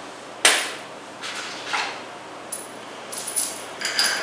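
Steel washers and bolt hardware being handled on a steel flange fixture: a sharp metal clank about half a second in, then scraping and light clinks, some with a brief high ring.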